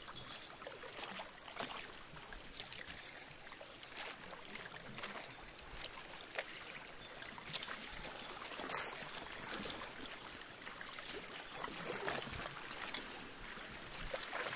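Sea water splashing and lapping against a moving boat's hull in many small, irregular slaps over a steady wash of choppy water.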